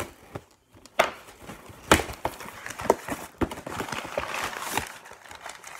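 A knife cutting through a cardboard shipping box: four sharp cracks about a second apart as the blade punches and the cardboard gives, with scraping and rustling between them.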